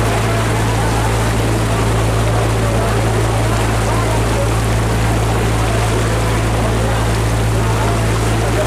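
Boat diesel engine running steadily with a constant low drone, under a continuous rush of water and wind noise.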